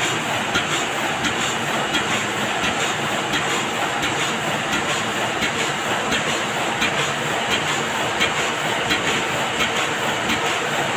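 Heidelberg GTO two-colour sheet-fed offset press running steadily, with a regular mechanical clack repeating somewhat faster than once a second.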